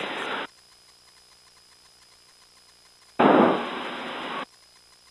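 Bursts of hiss over the aircraft's VHF radio with no words in them, as a transmission is keyed: a short burst cuts off about half a second in, then a louder one starts sharply about three seconds in and settles for just over a second before cutting off. Between the bursts a faint steady engine hum comes through the headset.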